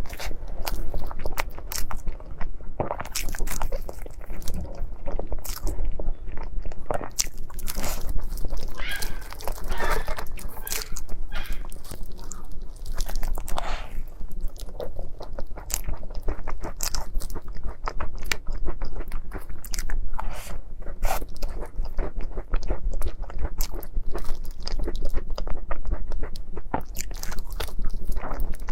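Close-miked eating sounds of a person biting and chewing cake: a continuous run of wet mouth clicks, smacks and soft crunches at an irregular pace.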